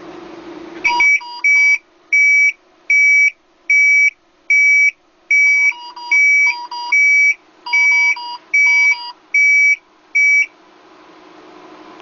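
Remote alarm buzzer sounding a loud, repeated high-pitched beep, about a dozen beeps at a little over one a second, relaying a ventilator alarm; a lower beeping tone mixes into some of the beeps. The beeping stops about ten and a half seconds in, leaving a faint steady hum.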